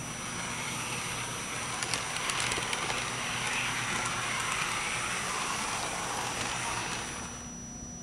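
Model diesel locomotive running along the track: a steady whir of its motor and wheels on the rails, with a few light clicks a couple of seconds in, dying away as it slows to a stop about seven seconds in.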